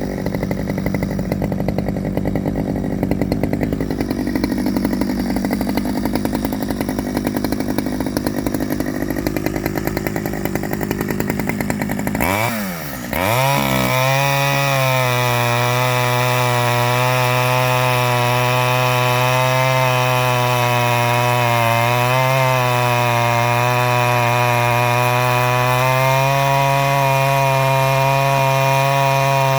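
Stihl 009L two-stroke chainsaw cutting into hardwood, running rough and uneven under load. About twelve seconds in, its pitch drops and climbs again, and it then runs at a steady high speed. The owner judges it to be getting too much fuel at the top end.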